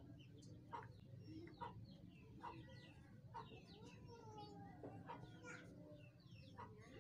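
Faint chirps of birds and chickens, with repeated short calls about once a second and an occasional longer, lower cluck.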